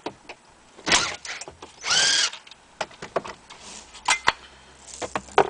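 Cordless power screwdriver backing out Phillips screws from the dash knee bolster, running in short bursts with its pitch rising and falling, between sharp clicks and rattles of the screws and plastic trim.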